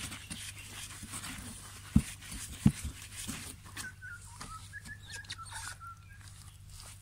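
Coco coir being mixed into potting soil by a gloved hand: crumbly rustling and scraping, with two sharp knocks about two seconds in, the loudest sounds. A faint wavering high tone sounds for about two seconds midway.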